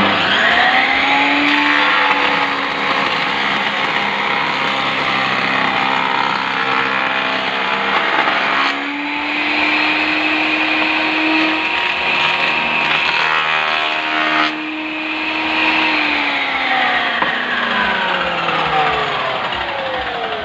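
Small electric motor of a woodworking power tool switched on and running, its whine rising quickly to speed, shifting in pitch twice, then falling steadily over the last few seconds as it winds down.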